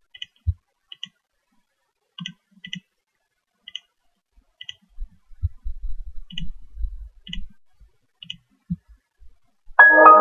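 Computer mouse clicking, single clicks and double-clicks about once a second, with a few soft low bumps in the middle. Near the end a Windows XP system chime starts as the session closes.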